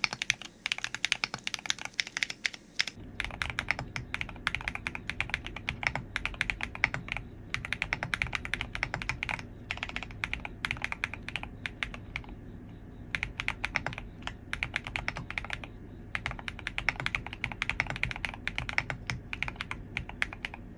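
Typing on a fully foamed Transition Lite custom mechanical keyboard with MP Tactile switches and Swagkeys LYLIA keycaps: quick runs of keystrokes with short pauses between them. About three seconds in, a steady low hum comes in under the typing.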